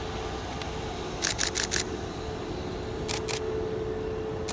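A camera shutter firing in rapid bursts: about four quick clicks a little over a second in, and two more around three seconds in. Beneath them, the steady rumble and whine of a taxiing Airbus A321neo jet.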